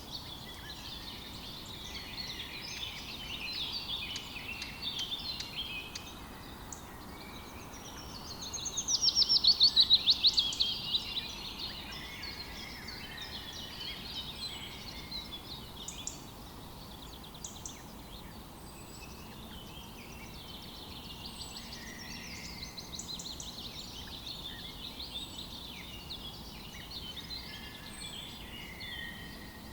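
Several small birds chirping and singing at once in overlapping short phrases, over a faint background hiss. About eight seconds in, one bird gives a loud, rapid trill lasting a couple of seconds.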